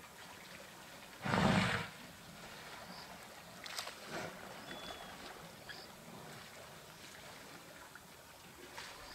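African elephants drinking at the water's edge: water splashing and dribbling as their trunks dip and lift. One much louder, half-second rush of noise about a second and a half in.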